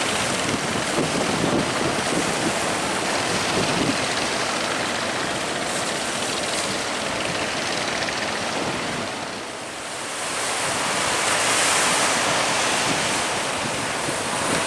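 Rough sea waves rushing against a ship, with wind buffeting the microphone: a loud, steady rush of noise that eases briefly about two-thirds of the way through, then swells again.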